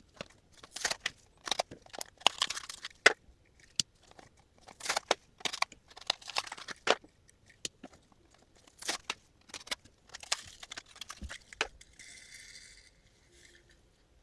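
Cardboard and plastic packaging being handled and opened: irregular clicks, crinkling and tearing, with a short steady hiss near the end.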